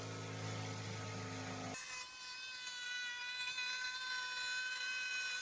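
Electric jigsaw cutting a sheet of 8 mm plywood, its motor running steadily. About two seconds in, the sound switches abruptly to a higher steady whine.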